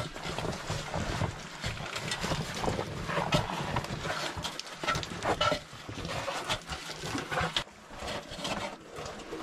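A caver's hard breathing with the scuffing and rustling of his oversuit against rock as he squeezes up a tight mine passage. Near the end he grips the rungs of a metal ladder.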